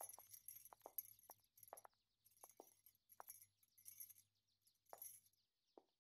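Faint, irregular clinking and jingling of worn jewellery, about ten light clinks that come sparser in the second half.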